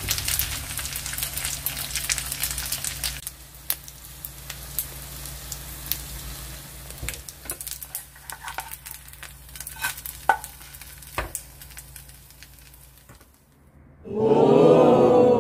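Pancake batter with chewy noodles frying in oil in a pan, sizzling and crackling with scattered pops. It is loud at first and settles to a quieter crackle about three seconds in. Near the end comes a brief loud sound with a wavering pitch.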